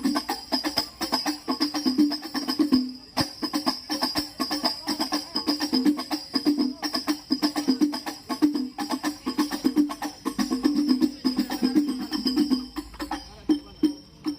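Hadroh percussion ensemble, hand-struck rebana frame drums with jingles, playing a fast, dense rhythm through a PA system during a sound check, with no singing. The playing thins out and stops at the very end.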